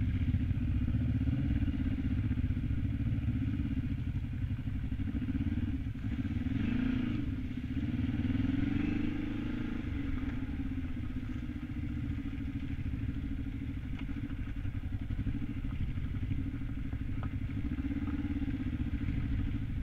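Kawasaki KLE 500's parallel-twin engine running at low revs on a rough gravel trail, its pitch rising and falling with the throttle twice in the first half, with a few light knocks later on.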